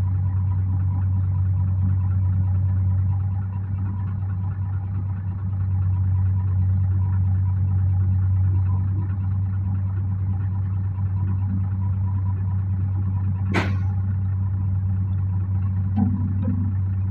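Heavy diesel engine of an excavator running steadily at a low, even hum. A short sharp sound, like a clank or hiss, cuts through once about three-quarters of the way in.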